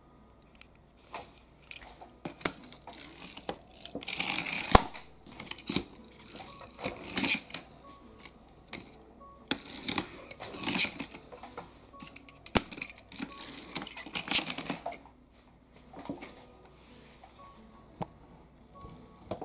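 A die-cast Porsche 911 Turbo pullback model car's wind-up spring motor whirring in several short bursts as the car is rolled backward on a tabletop and let go, with a few sharp clicks of the car being set down.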